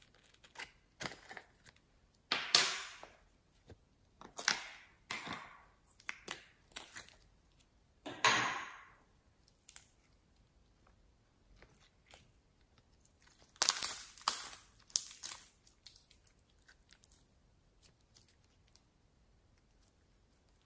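Clear slime with star-shaped sequins being stretched, squeezed and pulled apart by hand. It sounds in irregular sticky bursts with quiet gaps between them, busiest about two-thirds of the way through.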